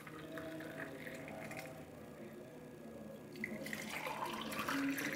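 Blended watermelon juice pouring from a blender jar into glass tumblers: a faint, steady liquid pour and splash, a little louder from about three and a half seconds in, as the stream moves on to the next glass.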